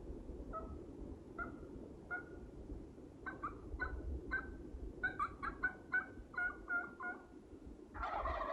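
A series of turkey yelps, spaced out at first and coming faster and in runs after about three seconds. Near the end a Merriam's wild turkey gobbler gobbles once in answer.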